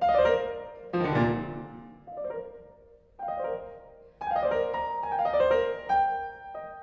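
Background piano music: gentle chords and arpeggios struck roughly once a second, each ringing and fading, with a brief lull about three seconds in.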